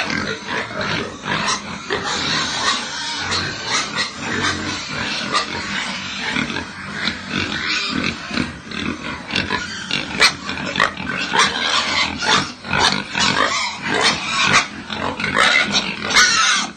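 A pen of young pigs grunting and squealing together in a continuous din, with many short sharp squeals that come thicker in the second half.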